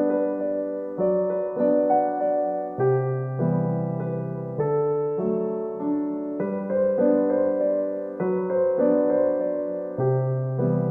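Background music: a gentle keyboard piece of sustained piano-like chords and notes that change about once a second.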